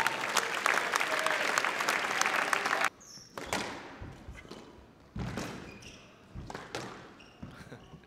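Crowd applauding for about three seconds, cut off abruptly. Then comes a squash rally: single sharp strikes of the ball off racket and walls, about half a second to a second apart.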